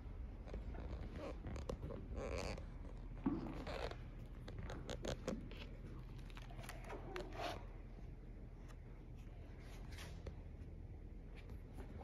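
Stiff paper pages of a handmade artist's book rustling and scraping in short, irregular bursts as they are handled and turned.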